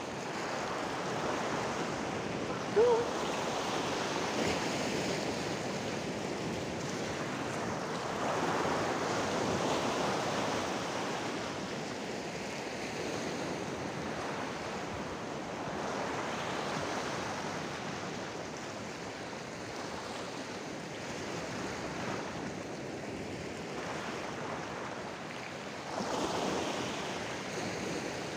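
Sea surf washing against a rocky shore, the waves swelling and falling back every several seconds. A single short chirp stands out about three seconds in.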